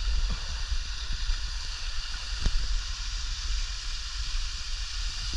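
Waterfall rushing steadily, with a deep low rumble underneath.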